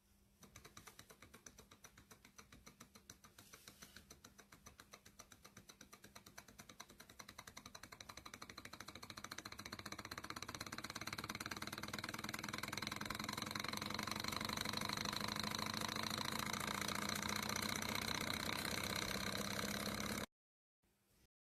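Small model Stirling engine with glass cylinders, started by a flick of its flywheel, running with a rapid, even mechanical clicking. The clicking grows faster and louder as the engine comes up to speed, then holds steady and stops abruptly near the end.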